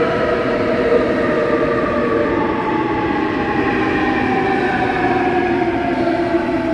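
Busan Metro Line 2 train running through a tunnel as it comes into a station: rumbling wheels on rail with a whine of several tones that slowly falls in pitch as the train slows.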